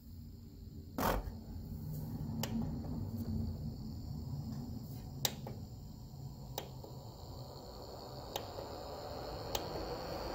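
AC Infinity Airtitan ventilator fan running and speeding up as its controller's speed setting is stepped up: a series of about seven sharp clicks from the button presses, the loudest about a second in, while the fan's rushing air grows louder near the end with a rising whine.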